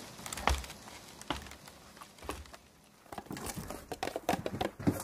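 Faint steady rain patter with a few soft knocks. From about three seconds in comes a quick run of rustling and clattering as things are rummaged through in a wooden chest.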